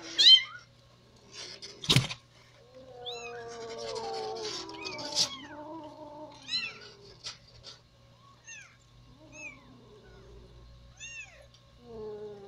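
Young kittens mewing: many short, high-pitched mews repeated throughout, with a longer, lower drawn-out cry from about three to six seconds in. A sharp knock sounds about two seconds in, and shredded newspaper rustles as they crawl over it.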